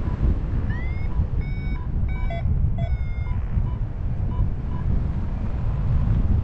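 Wind buffeting the microphone in flight, with a paragliding variometer beeping in short pips of one even pitch about three times a second, the sound it makes while the glider is climbing. Several higher chirping tones sound between about one and three seconds in, one of them rising.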